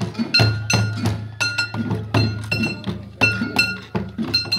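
Festival procession music: handheld metal percussion struck in a quick, uneven rhythm, about three or four strikes a second, each strike ringing briefly at the same high pitches over a steady low drone.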